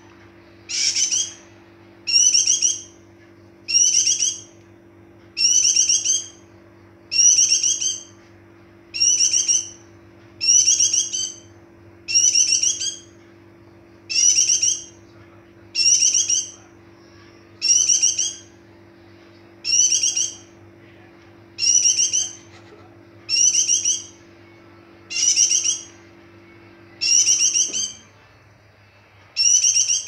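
Caged white-eye (pleci) singing in breeding condition (birahi): a short, quick, high twittering phrase repeated about every one and a half seconds.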